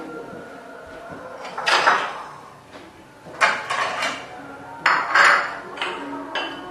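Dishes and metal utensils clattering and clinking in three main bursts, with a few lighter knocks after them.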